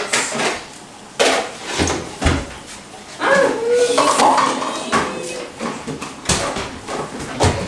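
Knocks and clatters of things being moved around in a kitchen cabinet during a search, several separate knocks, with a voice briefly in the middle.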